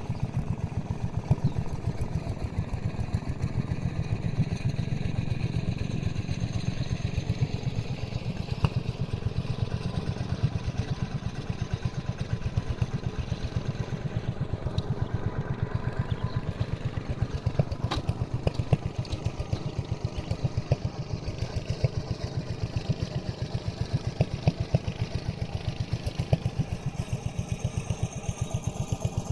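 A small engine running steadily at an even speed, its firing heard as a rapid, regular putter.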